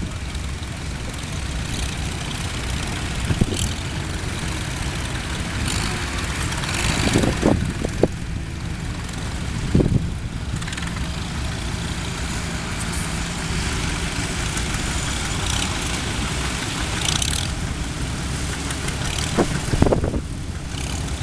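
Several vintage farm tractors running as they drive slowly past in a line: a steady low engine sound with a few brief louder thumps.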